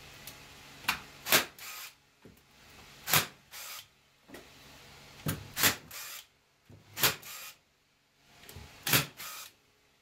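Staple gun driving staples through wire mesh into a wooden frame: about seven sharp clacks, a second or two apart, several of them followed by a softer rattle.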